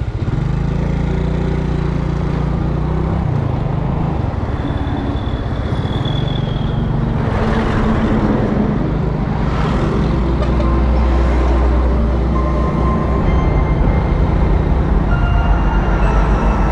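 Motor scooter riding along a road: its small engine running steadily under heavy wind rush on the microphone, with large trucks rumbling close alongside.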